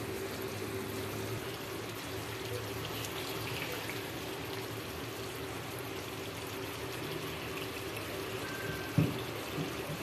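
Stuffed-eggplant masala gravy simmering in a pan: a steady soft bubbling hiss over a constant hum, with a light knock of the spatula against the pan about nine seconds in.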